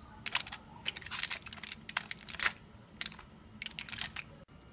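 Fingers flipping baked tofu cubes one at a time on an aluminium-foil-lined baking sheet: irregular light crinkles of the foil and soft taps as each cube is set down.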